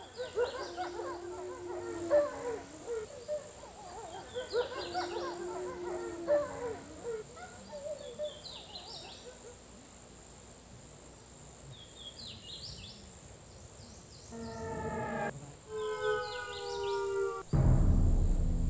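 Woodland ambience: birds chirping and calling over a steady, high-pitched insect drone. Near the end, a few seconds of held pitched tones come in, then a louder, deeper sound starts suddenly.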